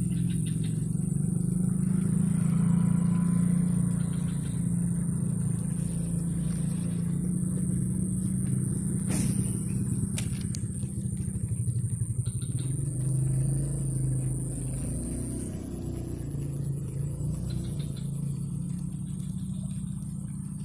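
Motor vehicle engine running with a steady low drone that swells in the first few seconds and eases off later. Two sharp clicks come about halfway through.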